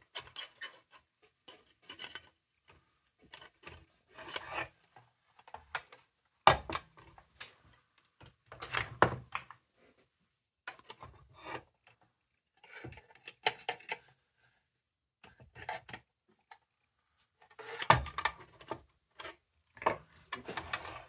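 Parts of a Rayo Pony No. 21 metal lantern being handled and fitted together: irregular clinks, knocks and scrapes with short quiet gaps, the loudest knocks about six seconds in and near the end.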